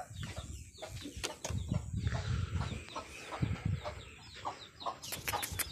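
Domestic hens clucking, agitated at being disturbed in their coop, with a louder burst of rapid, sharp squawks near the end.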